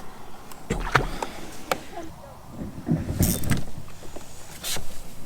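Handling noise on a kayak: scattered sharp clicks and knocks with low thumps, and two short hissy bursts, one a little past halfway and one near the end.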